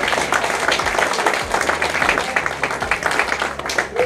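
A small crowd of people applauding, many hands clapping quickly, over steady background music.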